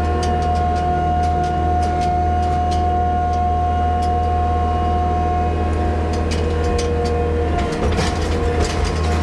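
Diesel engine of a farm loader running steadily, with a steady high hydraulic whine and scattered light metal clicks and clanks as a galvanised cattle crush is manoeuvred into place; the whine wavers briefly about eight seconds in.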